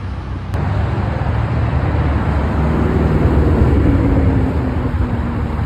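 Bugatti Chiron's quad-turbo W16 engine pulling away at low speed, a deep rumble whose note drops in pitch in the second half.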